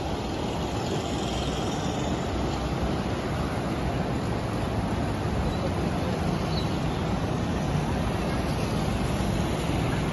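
Steady rushing of a fast-flowing, flood-swollen river, an even noise with no distinct events standing out.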